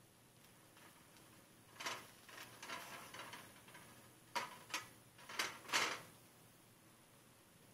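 A wooden spatula pressing and dabbing a chapati on a tawa to make it puff: faint soft taps and scrapes, with four sharper ones between about four and six seconds in.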